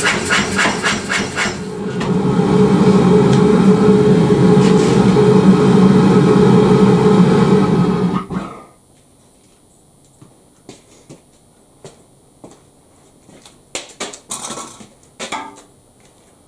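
Reiter KB1 air power hammer, just rebuilt and on its test run, striking hot steel in quick regular blows, about four a second. After about two seconds the blows give way to the machine's motor and compressor running loud and steady. About eight seconds in it stops abruptly, leaving only a few faint knocks and clatter.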